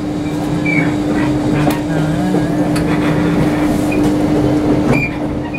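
Cabin noise aboard a ScotRail Class 318 electric multiple unit: a steady hum with one held tone over a rumble, with a few short high squeaks and sharp clicks.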